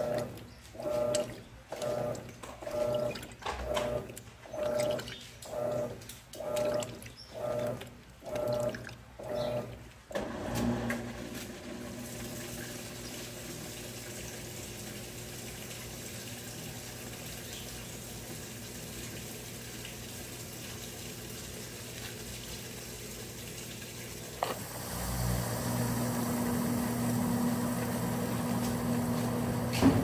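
Electrolux Turbo Economia top-load washing machine agitating, its motor turning back and forth in regular strokes about once a second. About ten seconds in the strokes stop and a steady motor hum with running water takes over; it gets louder after a click near the end.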